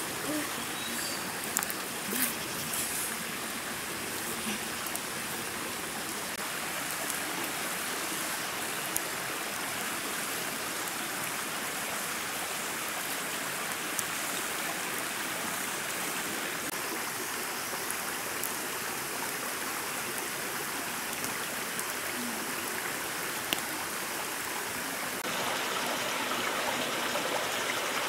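Mountain stream running steadily over rocks, an even rush of water that steps up suddenly in level near the end. A few faint clicks stand out here and there.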